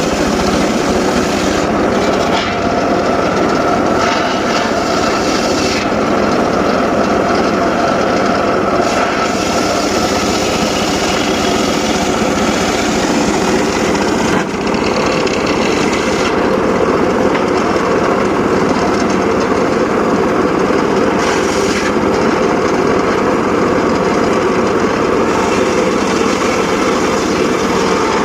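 Engine-driven saw running steadily while cutting teak wood, with a brief dip in level about halfway through.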